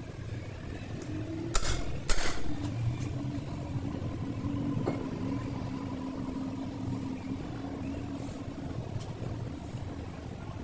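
Car running steadily: a low rumble with a steady hum. Two sharp knocks come about one and a half and two seconds in.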